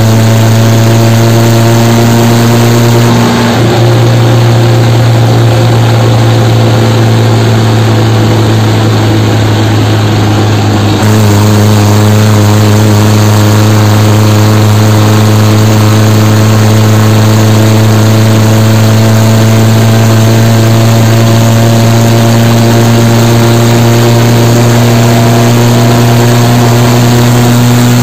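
Tractor's diesel engine running steadily under road load, heard up close from the tractor itself, with wind and road noise. Its pitch shifts a couple of times and slowly rises near the end.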